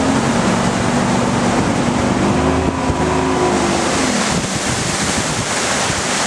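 Bass boat's outboard motor running at speed, with loud rushing wind and water noise. The engine note rises slightly, then falls away about four seconds in, leaving mostly the wind and water rush.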